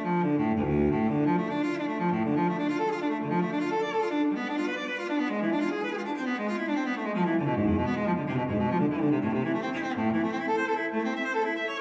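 Instrumental background music with slow, held notes in low bowed strings.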